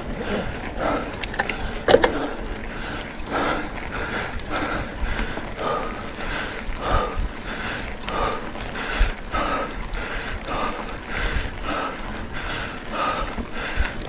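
Mountain bike ridden uphill on a dirt track: tyre and drivetrain noise with mechanical clicks and a sharp knock about two seconds in, over a regular pulse a little under twice a second.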